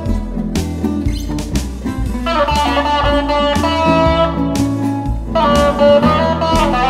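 Instrumental break of a country song: a lead guitar plays a melody with bending notes over a bass line, without singing.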